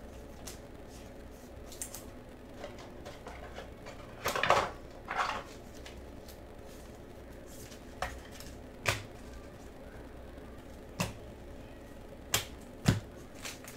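Baseball cards being flipped through and sorted by hand: scattered light clicks and taps of stiff card edges against each other and the table, with a louder brief scrape and snap about four and a half seconds in.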